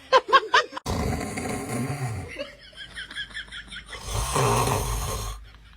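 A man snoring loudly: a few quick short sounds at the start, then two long snores, the second about four seconds in, with a fluttering higher sound between them.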